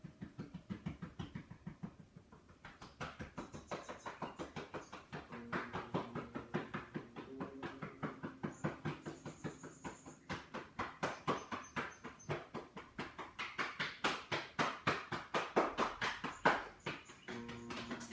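Hands patting and tapping the body through clothing as Qigong self-massage: quick, even taps, several a second, growing louder in the second half.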